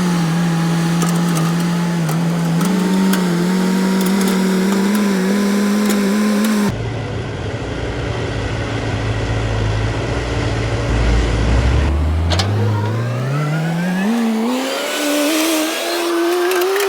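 Tracked excavator's diesel engine and hydraulics working under load, a steady droning note. About seven seconds in the sound changes suddenly to a lower rumble, and over the last few seconds the pitch climbs steadily as the engine revs up.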